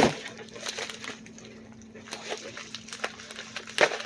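A mailer package being bitten and torn open: scattered crinkling and rustling of the packaging, with a sharper, louder rip right at the start and another near the end, over a faint steady hum.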